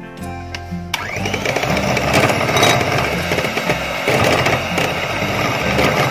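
Electric hand mixer switched on about a second in, its motor whining up to speed and then whirring steadily as the twin beaters whip thick dalgona coffee foam.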